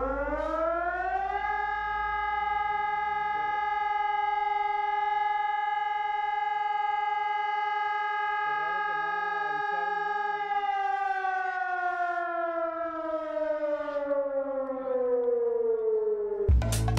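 Civil-defense-type warning siren. Its pitch winds up over about a second and a half, holds one steady tone for about nine seconds, then winds slowly down over about six seconds.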